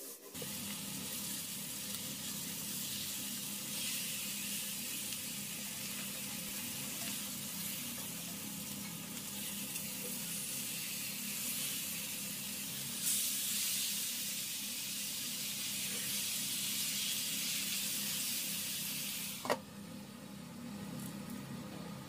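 Beef steaks sizzling as they sear in oil in a cast-iron skillet. Near the end a glass pan lid clanks down onto the skillet, and the sizzle goes on quieter and muffled under it.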